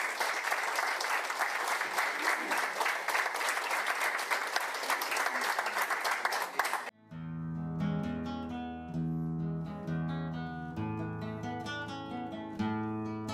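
An audience applauding, cut off abruptly about halfway through, then plucked guitar music begins, with individual notes ringing out.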